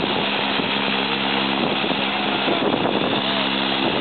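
Propeller airplane engine droning steadily, with wind noise on the microphone. The engine's steady tone is broken up by gusting wind through most of the middle.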